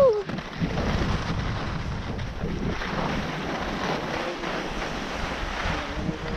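Wind buffeting an action camera's microphone and the hiss and scrape of skis on packed snow during a downhill run, a steady rushing noise. Right at the start a short falling vocal call is briefly the loudest sound.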